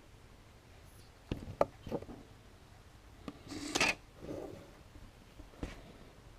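Small handling noises: a few light clicks and taps about a second in, a short scraping rub near the middle, and one more click later.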